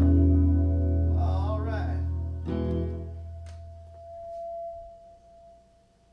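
The final chord of a rock song on electric guitar and bass ringing out and slowly dying away, with a short wavering note about a second in, a knock midway, and a single held high tone near the end as the sound fades to near silence.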